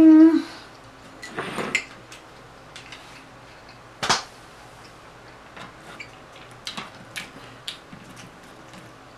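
A woman eating: a hummed 'mmm' falling in pitch, cut off just after the start, then soft mouth and hand sounds at the table, scattered small clicks and taps with the sharpest about four seconds in.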